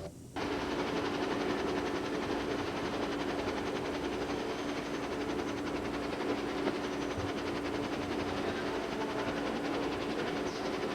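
A steady mechanical noise with a constant low hum, starting and stopping abruptly.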